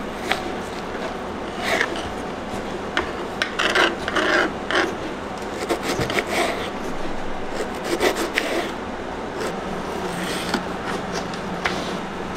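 A kitchen knife slicing an onion on a wooden cutting board, and near the end chopping green pepper. The blade scrapes and taps against the board in uneven clusters of strokes.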